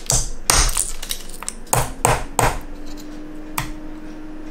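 Small hammer tapping a shattered glass watch crystal in its steel case, about six sharp irregular taps, with the glass cracking and shards clinking.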